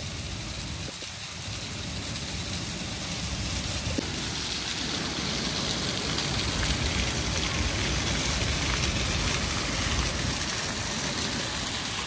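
Steady rushing water noise that grows louder about four seconds in, with one faint click partway through.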